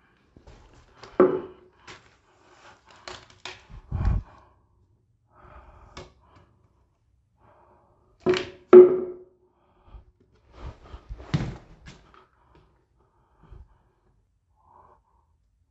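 Irregular knocks, thuds and scuffs of a hollow mannequin leg being handled and knocked against a littered floor. The loudest is a sharp double knock about eight seconds in.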